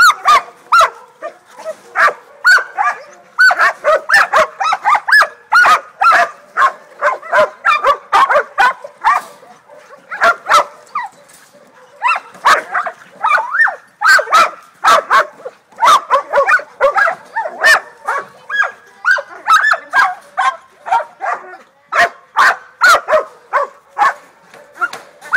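Catahoula leopard dog puppies barking rapidly and loudly at a caged wild boar, baying it in hog-dog training. There is a short lull about ten seconds in.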